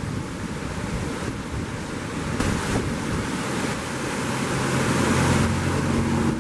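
Brown floodwater rushing and churning through a swollen creek under and over a low road bridge, a loud steady wash of water noise with wind on the microphone. In the last couple of seconds a vehicle's engine hum comes in and grows louder as it approaches on the road.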